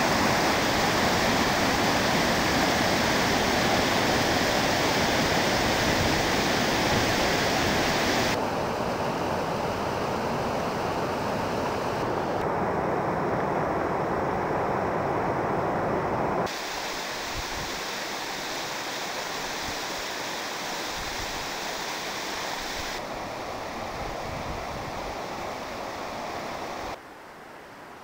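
Mountain river whitewater rushing over rocks, a steady noise that drops abruptly in level a few times, quietest near the end.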